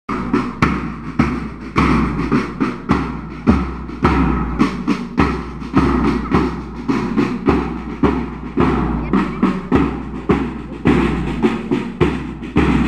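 Marching music with drums beating a steady march beat, a little under two strokes a second, with bass drum and sharper drum strikes over a held melody.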